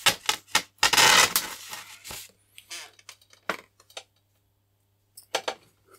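Clear Tesa adhesive tape pulled off the roll in one loud rip about a second in, followed by a few scattered small clicks and taps of handling.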